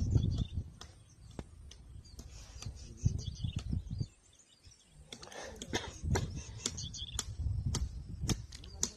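Birds chirping faintly, with irregular low rumbling swells and scattered sharp clicks.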